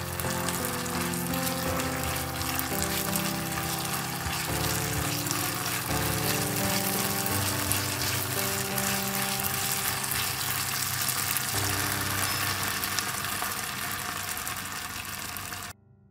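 Minced pork sizzling in a wok as it is stirred, a steady crackling hiss under background piano music; both cut off suddenly near the end.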